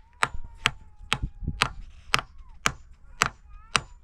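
Steady chopping: sharp single strikes about two a second, eight in all, with faint arching high-pitched calls between them.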